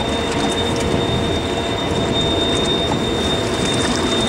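Steady rushing wind and sea noise on an offshore boat, with a constant thin high-pitched whine over it.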